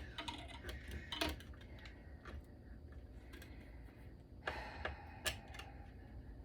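Scattered light clicks and taps of metal and plastic server parts being handled and worked loose during teardown, with a few sharper clicks about a second in and again near five seconds.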